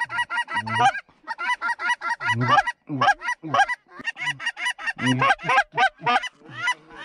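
Rapid goose honks and clucks, several a second and overlapping, many calls starting low and breaking up into a high note.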